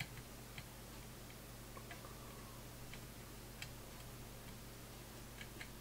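Faint, irregular small ticks over a steady low hum while a soldering iron's knife-blade tip is dragged along the fluxed pins of an SOP-16 chip during drag soldering.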